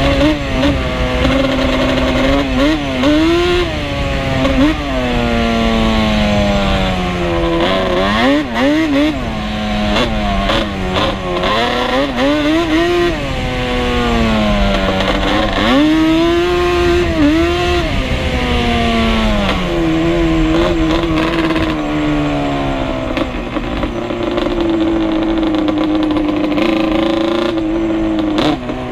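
Ported two-stroke sport ATV engine with an aftermarket expansion-chamber exhaust, riding hard with the throttle worked up and down. Its pitch rises and falls repeatedly, then holds fairly steady for the last several seconds.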